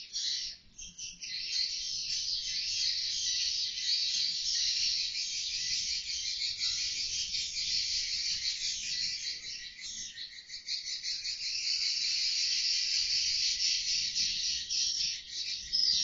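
A roost of edible-nest swiftlets chattering together, a dense, high-pitched, unbroken twitter that dips briefly about a second in and again about ten seconds in.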